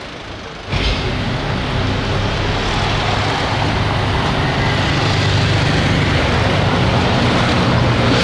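A large vehicle passing close by: loud, steady engine and road noise with a low hum, starting suddenly about a second in.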